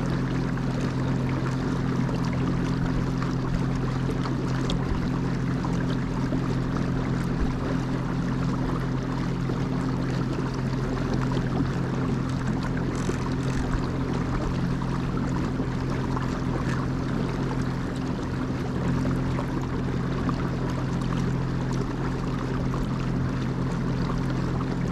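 A boat's motor humming steadily over a wash of rushing water as the boat moves along.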